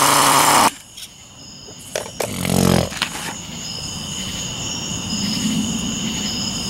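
Traxxas T-Maxx's 3.3 nitro engine running at a high buzzing pitch, then cutting out suddenly less than a second in. A short low buzz comes about two seconds later, then crickets chirp steadily.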